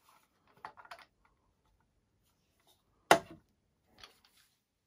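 Faint clicks and taps of small parts being handled, then one sharp knock about three seconds in as a plastic wheel fairing is set down on the wooden workbench.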